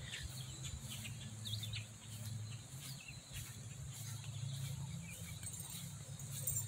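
Faint outdoor ambience: birds chirping here and there over a low steady hum.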